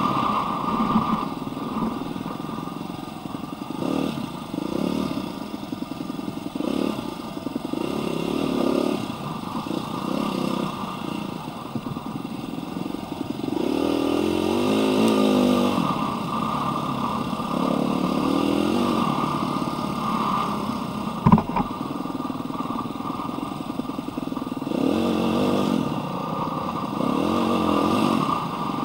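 Husqvarna dirt bike engine under way, its pitch rising and falling again and again as the throttle is opened and eased. There is one sharp knock about two-thirds of the way through.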